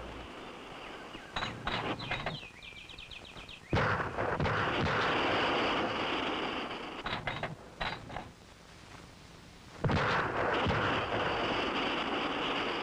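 Rifle shots from a 5mm rimfire magnum hitting liquid-filled cans and jugs. Sharp cracks come about a second and a half in and again near seven seconds, with two loud ones about four and ten seconds in. Each loud one is followed by a few seconds of rushing hiss as a target bursts into spray.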